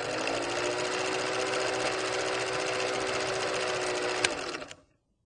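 Film-projector sound effect: a fast, even mechanical clatter over a steady motor hum, with a sharp click shortly before it cuts off near the end.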